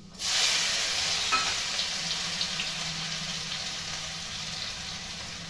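Chopped ginger dropped into hot oil in a kadhai, sizzling loudly at once and then slowly dying down, with a few small pops.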